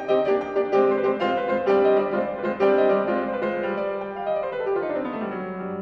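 Background piano music: a slow run of notes that settles on a held chord, fading out near the end.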